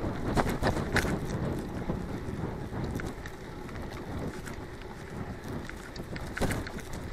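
Mountain bike riding fast over a bumpy dirt track: wind rushing over the camera microphone and tyres rumbling on the ground, with the bike rattling and knocking over bumps, most sharply about a second in and again near the end.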